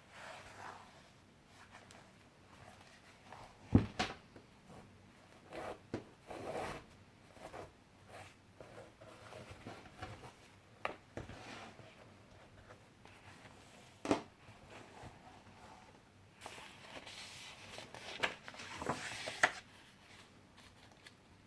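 Pages of handmade junk journals being turned and handled: paper rustling and swishing, with occasional soft knocks as pages and covers land, the sharpest about 4 s and 14 s in.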